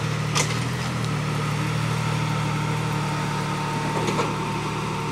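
Rock-crawling 4x4's engine running steadily at low revs as the vehicle inches up over a boulder, with a sharp knock about half a second in and a fainter one about four seconds in.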